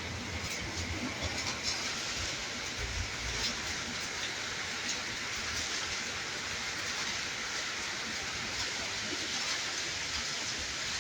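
Heavy rain falling steadily, an even hiss of downpour with scattered sharper drop splashes.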